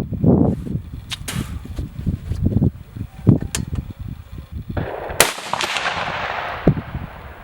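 A single rifle shot from a 6mm ARC AR-15 about five seconds in, followed by a fading echo downrange. Before it come a few sharp clicks and a low rumble of handling noise.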